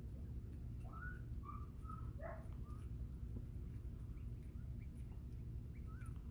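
Northern bobwhite quail giving a few soft, short whistled calls with slight rises and falls in pitch, clustered from about a second in and one more near the end, over a steady low hum.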